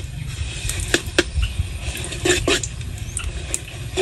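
Metal ladle knocking and scraping against a steel wok a handful of times, over a light hiss and a steady low rumble.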